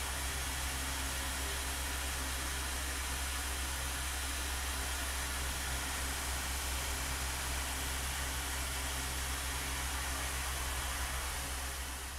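Tormach 770 CNC mill running a cut on a metal part: a steady whir and hiss over a low hum, tailing off near the end.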